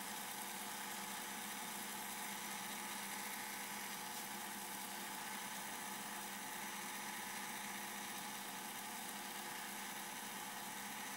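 Filament winder running: a steady motor hum with a few held tones over an even hiss, unchanging throughout.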